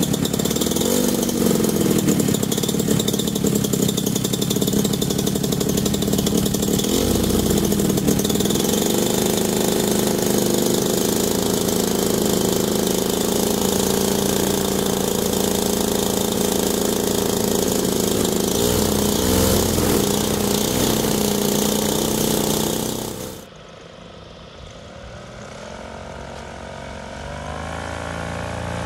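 Homemade paramotor's Yamaha two-stroke engine (RX100 crankcase, DT125 cylinder) running on a test run after its ignition flywheel was repaired and retimed, revs rising and falling a few times with the hand throttle. About 23 seconds in it cuts abruptly to a quieter paramotor engine and propeller heard from further off, its pitch rising near the end.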